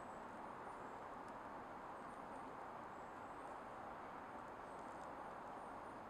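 Steady, even background hiss of outdoor ambience, with a few faint, thin, very high bird notes now and then.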